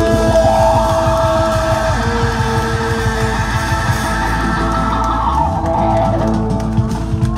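Live band playing loud: a trumpet holds one long high note, then drops to a lower held note about two seconds in, over electric guitar, bass and drums.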